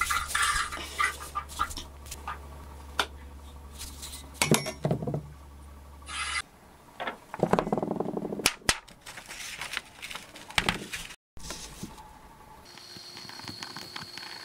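Workshop handling noises: scattered knocks and light metal clinks as a hand saw is lifted out of a cast-iron bench vise and set on a wooden bench, with a sheet of paper rustling about halfway through.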